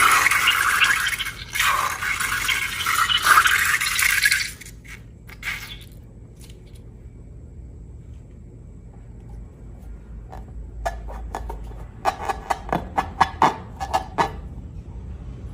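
Slime and balloon handling sounds: a loud scraping hiss for about four seconds, then quieter, then a run of sharp crackling clicks near the end.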